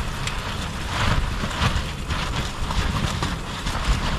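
Strong wind buffeting the tent: a steady low rumble with irregular gusty surges of hiss.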